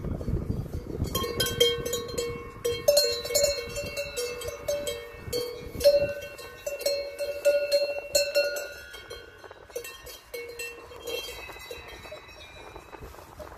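Metal cowbells hanging from cows' collars, clanking and ringing irregularly as the cows walk and graze. The clanks come thickest through the first two-thirds and thin out near the end.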